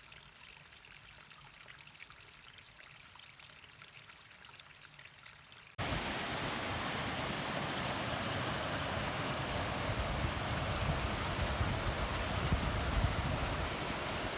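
Waterfall and stream water rushing: a faint, steady hiss for the first six seconds, then, after a sudden cut, a much louder steady rush of water.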